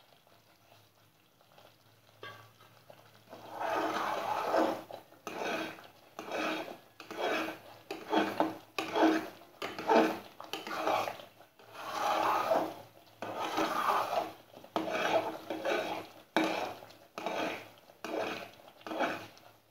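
Steel ladle stirring and scraping thick wheat halwa around a metal pot, in repeated strokes of about one and a half a second that start about three seconds in. The halwa is kept moving so it does not stick to the bottom of the pot.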